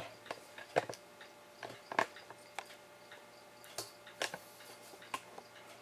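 Light clicks and taps at irregular intervals, about a dozen in all, from a camera and its mount being handled as the camera is lowered and re-aimed.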